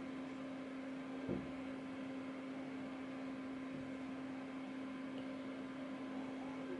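Steady electrical-sounding hum with a low even hiss, and a single soft knock about a second in.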